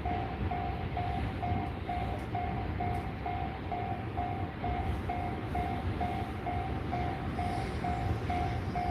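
Japanese railway level-crossing warning bell ringing a steady repeating ding, a little over two strikes a second, over a steady low rumble. It means the crossing is closed: barriers down for a train.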